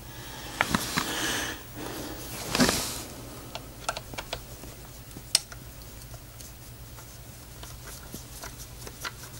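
Scattered light clicks and rustling as a hand torque screwdriver is turned on the scope rail's mounting screws, with a sharper click about five seconds in.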